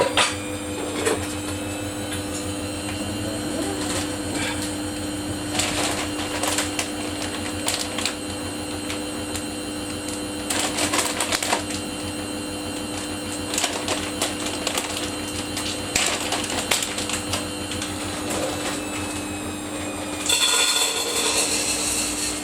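Samsung washing machine running a Daily Wash 30 cycle: a steady hum, with short bursts of clicking and rattling every couple of seconds.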